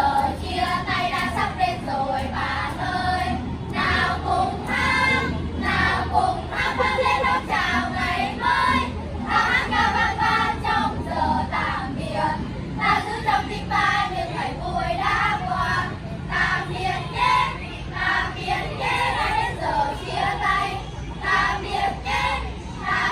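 A group of children singing a song together in unison.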